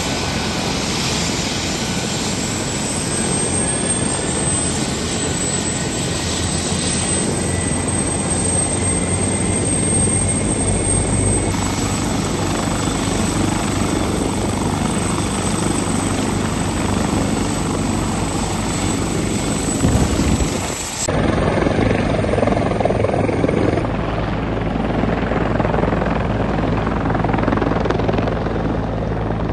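Turbine helicopters running close by, a steady dense rotor and engine sound with a thin, high turbine whine over it. The sound changes abruptly about two-thirds of the way through, as the helicopters lift off and fly low.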